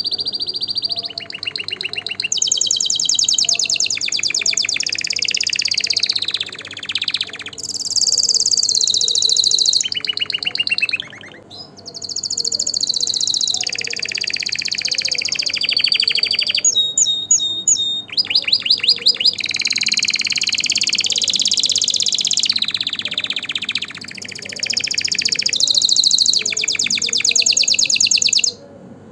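A canary singing a long, high song made of fast trilled phrases, each a rapid run of the same note, switching to a new phrase every second or two. It pauses briefly about eleven seconds in and stops shortly before the end.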